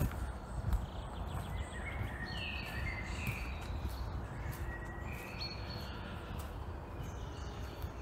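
A songbird sings a run of short, high phrases from about a second and a half in until about halfway through, over a steady low rumble and soft footsteps on a dirt forest path.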